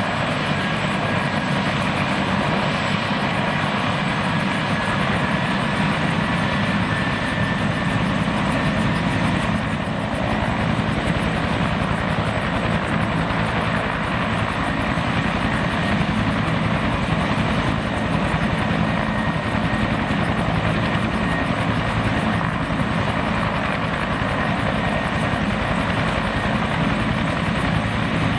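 Bell 212 twin-turbine helicopter running on the ground with its rotors turning: a steady fast rotor beat under a high turbine whine that creeps slightly up in pitch.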